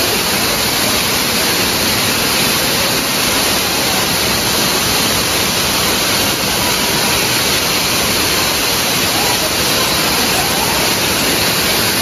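Waterfall: a steady, loud rush of falling water, an even hiss with no let-up.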